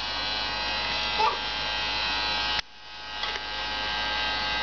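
Toy bubble machine's small electric motor and fan running with a steady buzzing whir. The sound drops off suddenly a little past halfway and builds back up.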